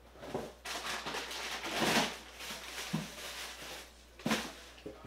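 Rustling handling noises swelling over about two seconds, then a single sharp knock a little over four seconds in.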